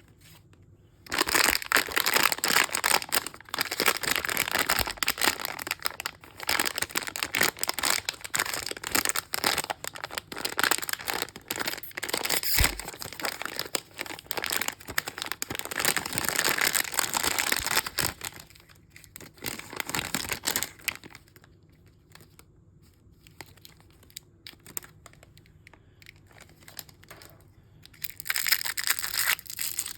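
Crinkly mystery-bag packaging being crumpled and torn open by hand, a dense crackling for most of the first half, then scattered small clicks and a short final burst of crinkling near the end.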